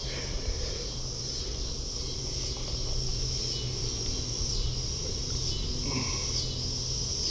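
Insects chirring in a steady high-pitched drone, with a low steady rumble underneath.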